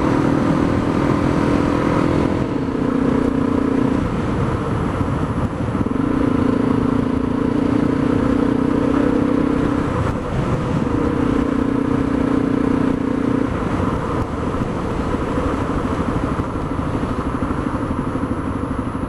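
Single-cylinder dual-sport motorcycle engine running at road speed over a steady rush of air noise. The engine note drops away briefly twice, then settles lower and quieter for the last few seconds.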